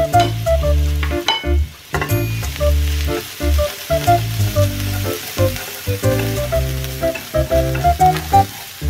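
Julienned carrots sizzling in oil in a nonstick frying pan as they are stirred, with background music playing over it.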